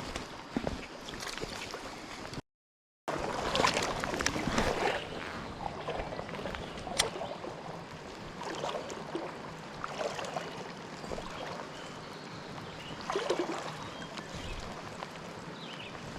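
Creek water splashing and gurgling unevenly, with scattered small clicks and knocks. The sound cuts out completely for about half a second near the start.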